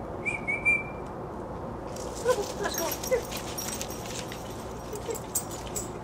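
A dog whining: a thin, high whine near the start, then a few short squeaky whimpers from about two seconds in.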